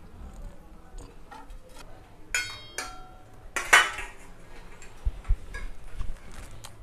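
A stainless-steel ladle clinks against a steel pot and small steel bowls as crab curry is served, with light scraping taps throughout. Two louder clanks come about two and a half and nearly four seconds in, and the first rings briefly.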